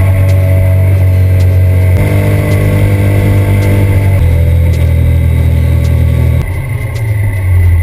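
Triumph Daytona 675's three-cylinder engine under way at speed, its note shifting in steps about every two seconds as the throttle and gears change; about three-quarters through the sound drops, then builds again.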